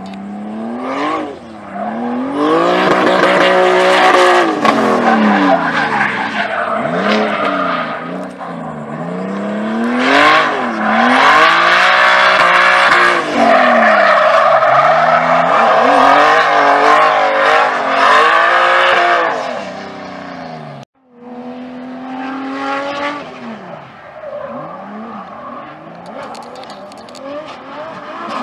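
BMW E36 drift car engine revving up and down again and again through a drift, with tyres squealing and skidding. About two-thirds of the way through the sound breaks off for an instant, and a quieter stretch of another E36 drifting follows.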